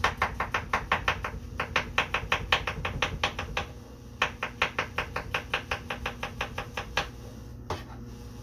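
Knife chopping a carrot on a wooden cutting board in quick, even strokes, about six a second, in three runs with short pauses between; the chopping stops about seven seconds in.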